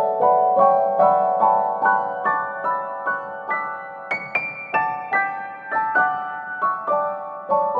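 Background piano music: a gentle melody of evenly spaced notes, rising to a higher phrase about halfway through.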